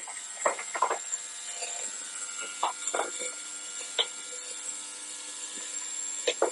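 Scattered light clicks and knocks from hand work on motorcycle parts, over the steady hum and high whine of an ultrasonic cleaner running.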